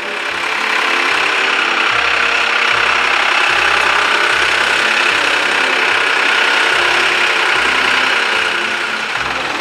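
Loud background music: a bass line stepping from note to note under a dense, noisy upper layer.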